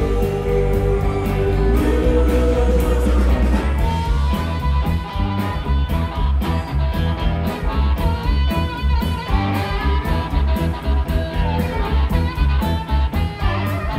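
Live electric blues band playing with a steady drum beat: electric guitars, bass guitar and drum kit through the stage PA.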